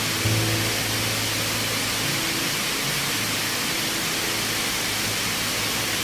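Dubai Mall's indoor waterfall: a steady rush of falling water, with a faint low musical tone in the first two seconds.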